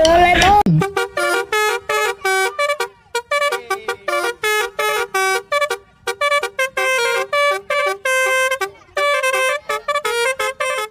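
A Basuri telolet horn playing a fast tune of short, bright toots, in phrases separated by brief pauses, after a short sliding tone at the very start.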